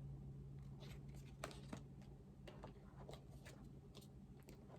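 Faint crinkles and light clicks of nail-strip packets being handled, a few scattered ticks, over a low steady hum.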